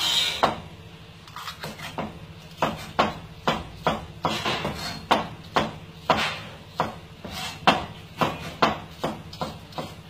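Chef's knife chopping tomato and cucumber on a plastic cutting board: sharp knocks of the blade on the board, unevenly at about two a second. A short loud burst of noise comes right at the start, and a steady low hum runs underneath.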